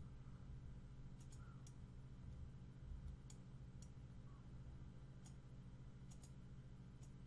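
Faint computer mouse clicks, about ten scattered irregularly, as the patch tool is worked across the image, over a steady low hum.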